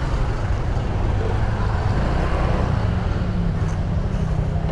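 Motorcycle riding along a street: steady engine and road noise with a heavy low rumble.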